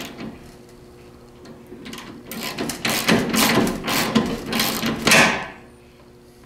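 Hand ratchet with a 9/16 socket turning a lag screw through a steel sliding-door track into the wall. There are about eight quick back-and-forth ratcheting strokes over three or four seconds, starting nearly two seconds in and stopping shortly before the end. The lag is being snugged but left short of fully tight.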